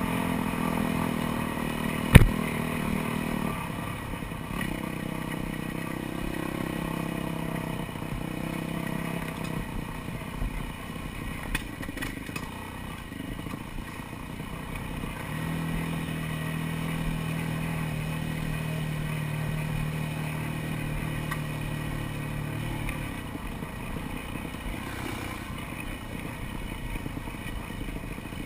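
Dirt bike engine running while it is ridden over a rough trail, its revs rising and falling with the throttle, over a steady clatter and rattle of the bike on the bumpy ground. A single sharp knock about two seconds in is the loudest sound.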